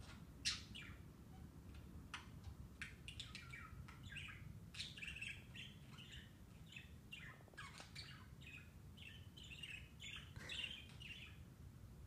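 Budgerigar chattering quietly in a run of short chirps and twittering notes.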